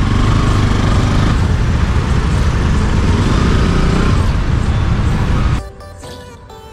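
Loud road noise from riding a motorcycle in heavy city traffic: engine and traffic rumble mixed with wind hiss. It cuts off abruptly about five and a half seconds in, giving way to quiet background music.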